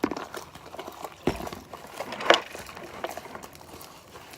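Slime being mixed in a bowl: soft wet squishing with small irregular clicks, and two sharper knocks, about a second in and past two seconds.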